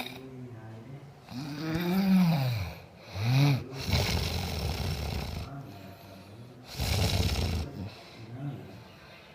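A person snoring. The first two snores carry a pitched tone that rises and then falls, the first one long. Noisier snores without a clear pitch follow about four and seven seconds in.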